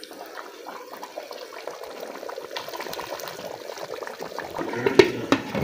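Thick onion-tomato chicken masala bubbling in a pot on a gas stove, with many small pops, as chopped green chillies are dropped in. A sharper click comes about five seconds in.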